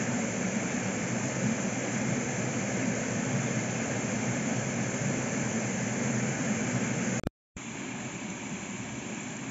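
A steady rushing noise with no distinct events. It cuts out for a moment about seven seconds in and comes back a little quieter.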